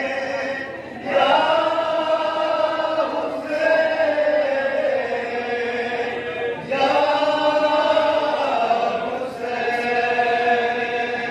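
A man's voice chanting a noha, a Shia mourning lament, into a microphone. It goes in long held phrases of about three seconds each, with a short break for breath between them.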